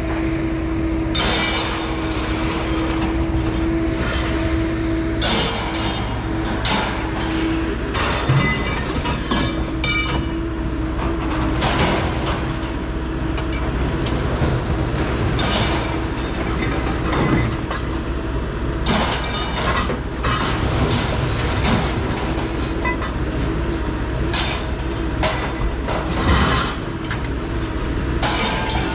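A vehicle moving with a steady rumble and a held drone, with irregular metallic clicks, clinks and rattles throughout.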